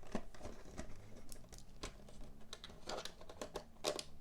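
Irregular small clicks and scrapes of a precision screwdriver turning a Phillips screw out of a VHS cassette's plastic shell.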